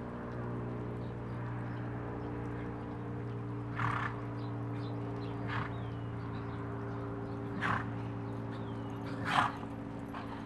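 A horse loping in a dirt arena, heard faintly under a steady low hum. Four short, breathy noise bursts come a couple of seconds apart, the last the loudest, and a few faint high chirps are heard.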